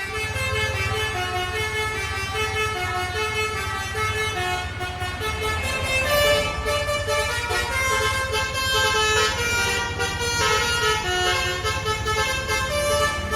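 Basuri musical bus horn (telolet) playing a tune of many short stepping notes, over the steady low rumble of the bus engine.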